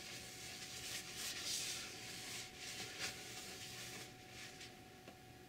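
A cloth wiping across the sanded, oil-painted top of a wooden speaker box: soft rubbing swishes that swell and fade with each stroke.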